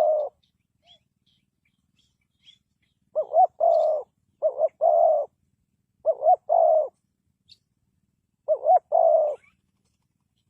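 Spotted dove cooing: a call near the start, then after a pause of about three seconds, four phrases about every one and a half to two seconds. Each phrase is a short note followed by a longer coo. Faint high chirps from small birds come in between.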